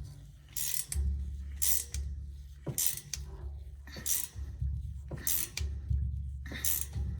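A ratchet wrench tightening the bolt on an oil furnace's oil filter canister, in short ratcheting strokes about once a second, over background music.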